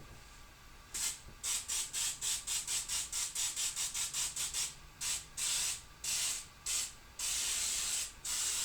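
Aerosol baking spray hissing from its can onto a baking pan. It starts about a second in as rapid short spurts, about four a second, then turns into longer sprays of half a second to a second each.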